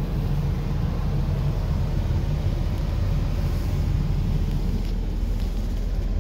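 Ford 6.7-litre Power Stroke V8 turbo-diesel idling, a steady low rumble heard from inside the truck's cab.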